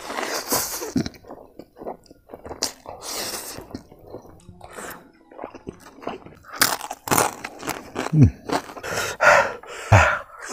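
Eating sounds: a mouthful of spicy ramen noodles slurped in at the start, then wet chewing and smacking. There are sharp breaths blown through pursed lips, and near the end two short low hums that fall in pitch.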